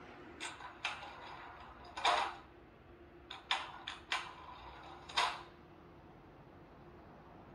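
The ESU LokSound 5 sound decoder of a Märklin H0 model locomotive plays through its small loudspeaker. It gives a series of short, sharp hisses and clicks, about eight in all, with the longest and loudest about two seconds in, over a faint steady hum.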